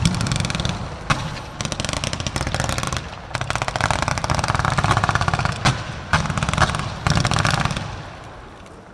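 Fireworks going off: dense strings of rapid crackling pops in several salvos, with a few sharper single bangs standing out, dying away near the end.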